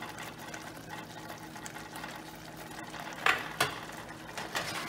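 Curry simmering in a saucepan, a steady faint bubbling with fine pops over a low steady hum. Two sharp knocks come a little past three seconds in.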